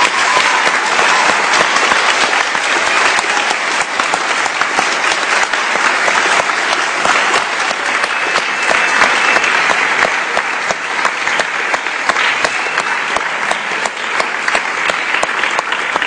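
A large audience applauding: steady, loud clapping from many hands at once.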